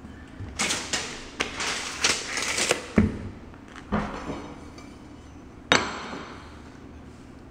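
Hand tools and a loose oak threshold being handled on a hardwood floor: a run of short scrapes and rattles, a sharp snap about three seconds in, a knock about a second later, and another sharp click near six seconds as a small square is set on the threshold.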